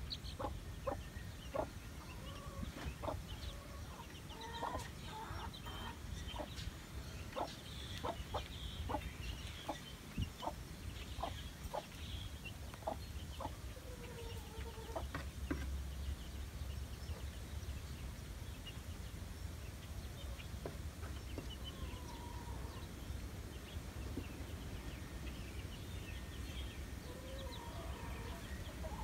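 Australorp hen clucking softly in a run of short clucks, thickest in the first half and sparser later, with her chicks peeping.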